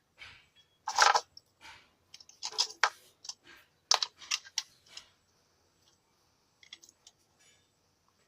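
Irregular small clicks and scrapes of wires and small parts being handled on a workbench. They come thickest in the first five seconds, with a few faint ticks later.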